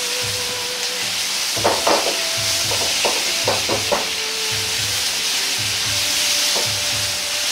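Pork belly and freshly added cabbage, bean sprouts and carrot sizzling steadily in a hot wok as they are stir-fried. A few short knocks from the stirring come about two seconds in and again between three and four seconds.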